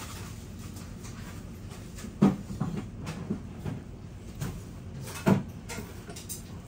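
Tableware clatter at a noodle counter: two sharp knocks about three seconds apart, with lighter clicks between them, over a steady background hum.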